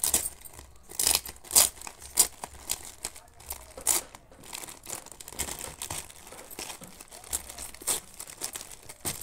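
Plastic courier mailer bag being torn open by hand, crinkling and ripping in a run of irregular sharp crackles, loudest in the first few seconds and sparser after.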